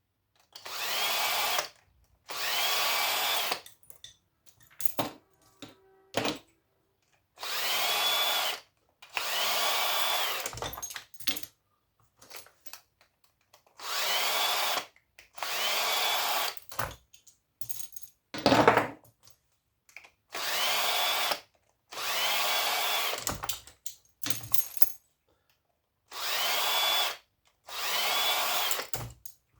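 Cordless drill driving screws out of cast-aluminium motor housings: about ten short runs of a second or so, mostly in pairs, each spinning up in pitch as it starts. Short metal clinks and clatter come between the runs as parts are handled, with one sharp knock about two-thirds of the way through.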